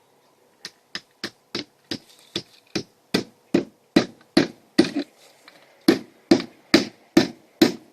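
Hammer driving nails through the nailing slots of a vinyl siding panel: a steady run of strikes, about two or three a second, light at first and growing harder, with a short pause about five seconds in before the blows start again.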